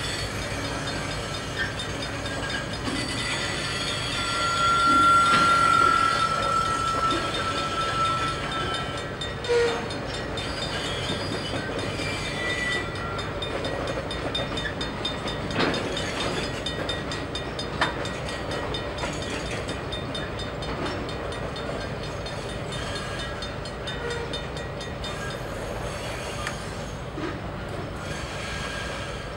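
Freight train's heavy-duty flatcar with an oversized load and the caboose behind it rolling slowly past, a steady rumble with a few sharp clanks. A single high, steady wheel squeal comes in about four seconds in and holds for about four seconds, the loudest part.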